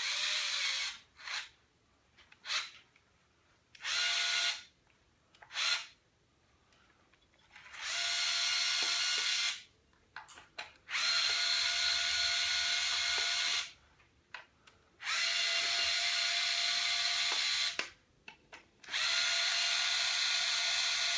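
Small cordless electric screwdriver whirring in bursts as it backs out the screws of an Intel NUC mini PC's bottom cover. There are a few short blips first, then four longer runs of two to three seconds each with pauses between.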